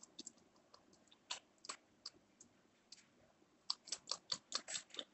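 Faint light clicks and taps of a small plastic toy against a toy plate as it is pretend-fed. A few scattered ones, then a quick run of about eight near the end.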